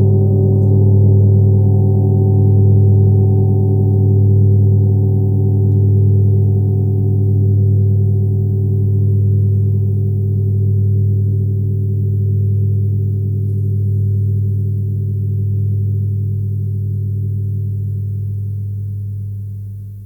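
Tibetan gong ringing on after a strike with a deep hum and layered overtones. It slowly pulses and dies away, fading out near the end.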